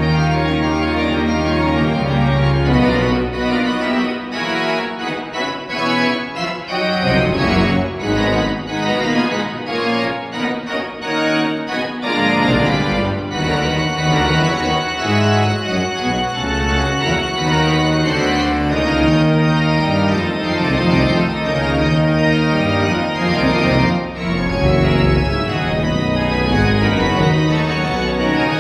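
Pipe organ playing a many-voiced piece with sustained chords. The deep bass notes drop out about three seconds in and return about twelve seconds in.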